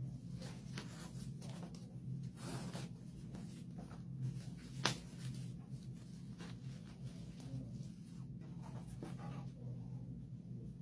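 Hands rustling and rubbing a plush fabric blanket and stiff paper while wrapping a doll, in soft irregular scrapes, over a steady low hum. One sharp click about five seconds in is the loudest sound.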